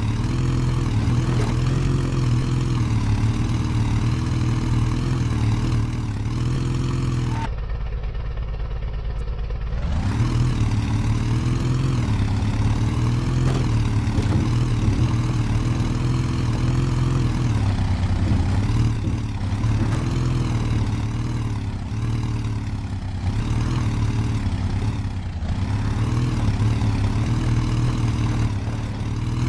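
Off-road 4×4 engine running under load, its pitch rising and falling as the throttle comes on and off. For about two seconds, starting near a quarter of the way in, it gives way abruptly to a duller, steady hum.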